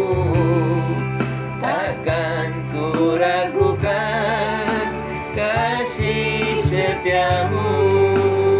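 Music from a gospel song: a melodic lead line with vibrato over held bass notes, during an instrumental interlude of the duet.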